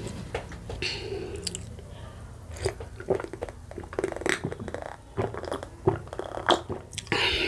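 Close-miked gulps and swallows as a dark drink is drunk from a glass mug, a run of short wet clicks and gulps, with a short hiss-like burst near the end.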